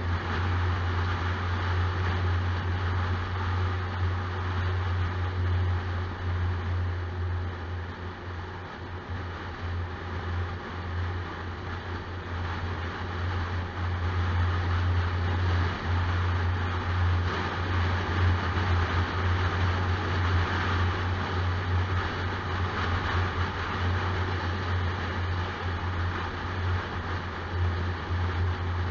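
A car driving steadily, heard from inside the cabin: a low, even engine drone under a constant hiss of tyre and wind noise.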